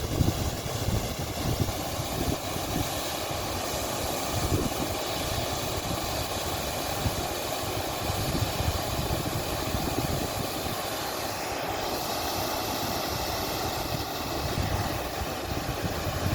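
Small waterfall rushing steadily, with an irregular low rumble underneath.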